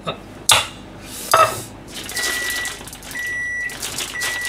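A stainless steel bowl clanks twice against the steel kitchen counter, the second knock ringing briefly. Then a kitchen appliance gives three high electronic beeps, about half a second each and a second apart.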